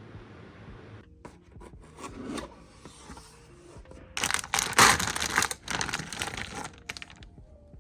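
Packaging being torn open and rustled by hand: scattered small rustles and clicks, then a loud stretch of tearing and crumpling lasting about two and a half seconds in the second half.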